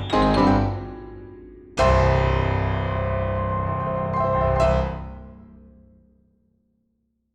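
Background piano music: a quick run of notes, then a chord struck about two seconds in and left to ring, fading out to silence shortly before the end.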